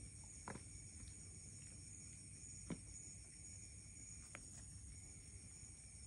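Near silence: quiet night-time room tone with a faint steady high-pitched whine and three faint clicks, about half a second, nearly three seconds and four and a half seconds in.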